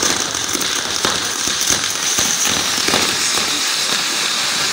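Fireworks on a castillo, a pyrotechnic tower, burning: a steady fizzing hiss of spark-spraying set pieces with many sharp crackling pops scattered through it.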